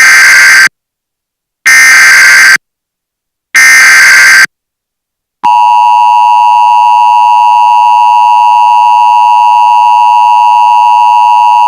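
Emergency Alert System SAME header: three harsh, buzzy data bursts, each about a second long and a second apart. About five seconds in, the long steady attention tone begins, signalling that a new alert follows.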